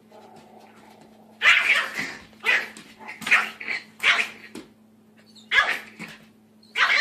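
A dog barking, about six barks at uneven gaps, starting about a second and a half in, over a low steady hum.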